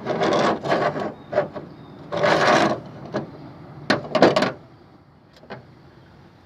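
Parts of an old mortise lock latch being handled and fitted by hand: several short scraping rubs in the first three seconds, then a cluster of sharp metallic clicks about four seconds in and a couple of faint ticks after.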